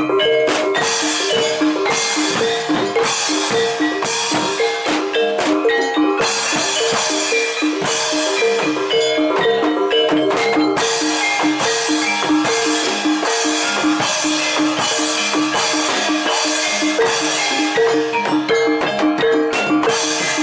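Live Javanese gamelan accompaniment for barongan dance: tuned metal bars struck in a fast, repeating pattern of ringing notes, with drum strokes over it.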